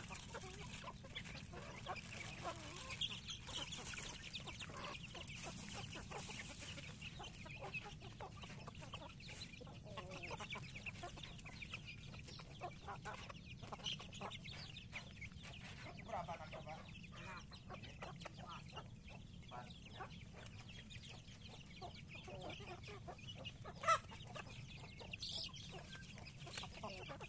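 Flock of free-range village chickens clucking as they feed, with scattered short taps throughout. Near the end comes one sharp click, the loudest sound, followed by a brief rising call.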